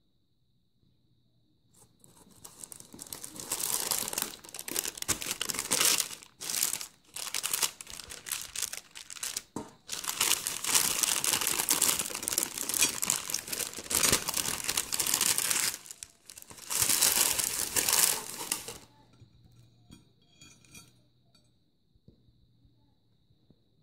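Baking paper crinkling and rustling in a run of bursts with short breaks as it is handled and peeled away from a crisp roasted-vermicelli kunafeh. It starts about two seconds in and stops a few seconds before the end.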